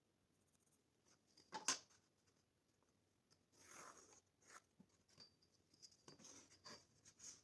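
Faint handling noises: a sharp click about a second and a half in, then two spells of light scraping and rustling.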